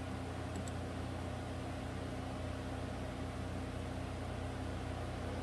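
Steady low mechanical hum with no change in pitch or level, and two faint short clicks about half a second in.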